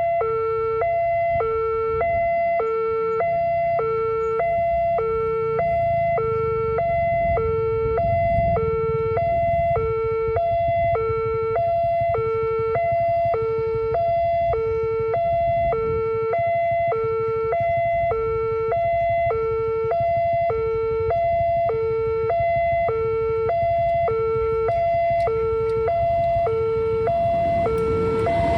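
Railway level-crossing warning siren sounding continuously in an even, repeating low-high two-tone alternation, the alarm that runs while the barrier is down for an approaching train.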